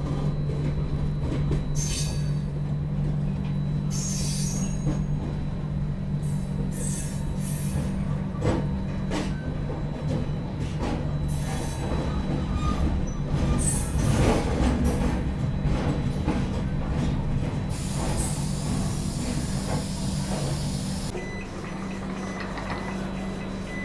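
Tejas Express train running slowly into a station, heard from inside the coach: a steady low rumble and hum, with short high squeals and hisses from the wheels and brakes, and a longer hiss about three quarters of the way through.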